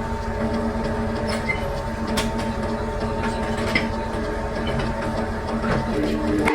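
Workshop machinery running steadily, a continuous mechanical noise with a steady hum and scattered light metallic clicks, cutting off abruptly at the end.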